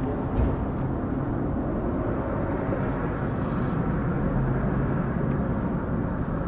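Steady low outdoor rumble, like distant road traffic, with no clear owl call standing out.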